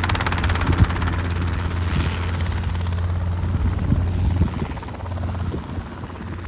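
Helicopter running in a hover: a steady low drone of engine and rotor with a fast, even blade chop that fades somewhat toward the end.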